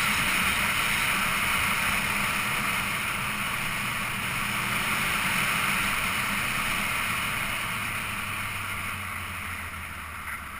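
Steady rush of wind over the microphone and road noise from a moving vehicle with an onboard camera, easing off over the last few seconds as it slows.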